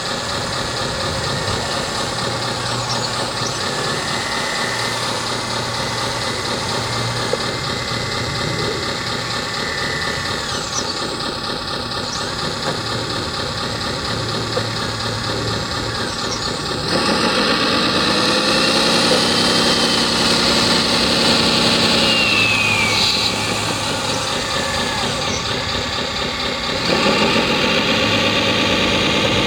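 Radio-controlled hydraulic model excavator and dump trucks working, giving a steady engine-like drone. About 17 seconds in it gets louder, with a rising and falling whine as the machines are driven harder, then eases back and rises again near the end.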